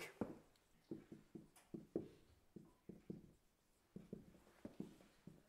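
Dry-erase marker writing on a whiteboard: a faint, irregular run of short taps and strokes, a few a second, with a brief lull around the middle.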